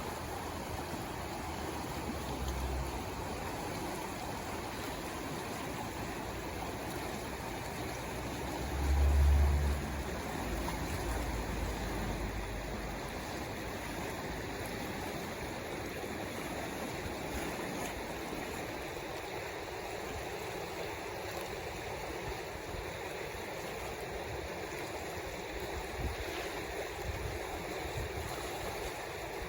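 Merced River water rushing steadily. About nine seconds in, a brief low thump rises above it.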